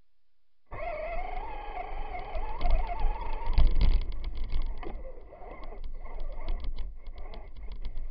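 Onboard sound of a Traxxas Stampede RC truck driving through snow, starting suddenly under a second in. The electric motor and gears whine, wavering in pitch with the throttle. A heavy low rumble of bumps comes about three and a half seconds in, followed by a rattle of rapid clicks and knocks from the chassis over rough ground.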